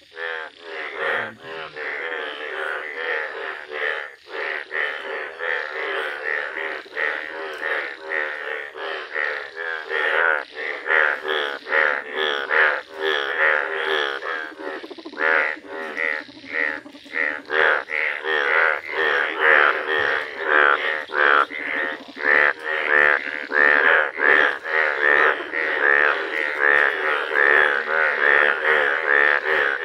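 Indian bullfrog males in yellow breeding colour calling: loud croaks repeated in quick succession and overlapping, growing denser and more rhythmic after about ten seconds.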